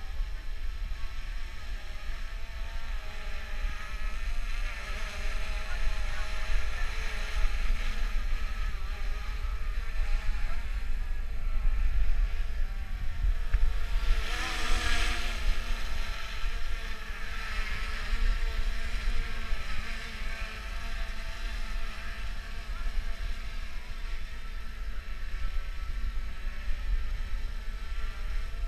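DJI Phantom 2 quadcopter's four propellers buzzing as it flies overhead, a stack of whining tones that waver in pitch, loudest about halfway through as the drone passes low and close. Wind rumbles on the microphone underneath.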